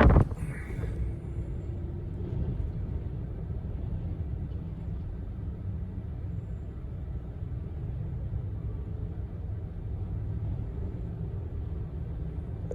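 Low, steady rumble, strongest in the deep bass, with only a faint hiss above it.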